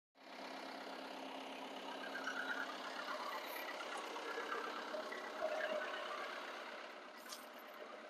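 Mahindra 2638 compact tractor's diesel engine idling steadily, with a single small knock about five and a half seconds in.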